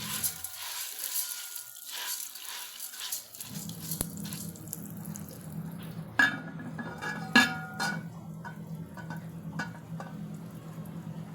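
Cookware and utensils clattering during popcorn preparation: scraping, stirring and small knocks, with two louder ringing clanks past the middle, over a steady low hum.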